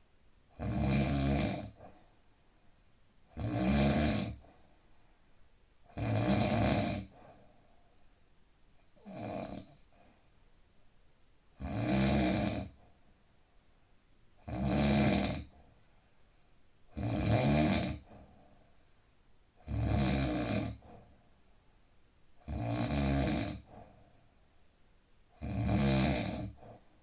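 A man snoring deeply and regularly: about ten snores, each roughly a second long, coming every two to three seconds with quiet pauses between. The snore about nine seconds in is shorter and weaker than the rest.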